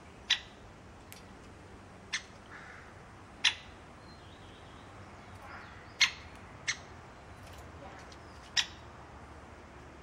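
Great spotted woodpecker feeding at a seed feeder, making six sharp, short, high-pitched sounds one to two and a half seconds apart.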